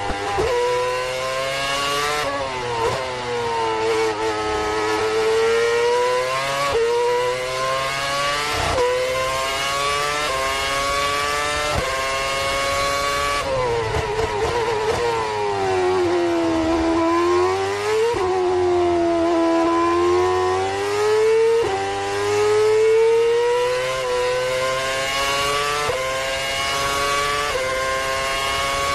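Formula 1 V8 racing engine at speed: the pitch climbs through the gears with a quick drop at each upshift. Twice the pitch sweeps down as the car slows for a corner, then climbs again as it accelerates out.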